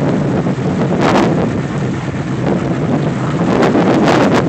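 Wind buffeting the microphone: a steady rushing noise, with stronger gusts about a second in and again near the end.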